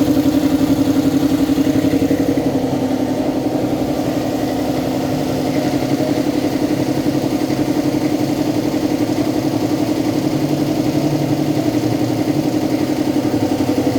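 Air compressor running steadily while it builds up air pressure, a fast, even pulsing hum.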